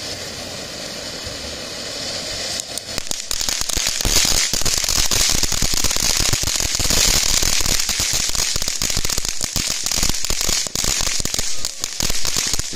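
TNT Fireworks Strawberry Fruit Bowl mini fountain hissing as it sprays sparks, then about three seconds in breaking into rapid, loud crackling that goes on to the end.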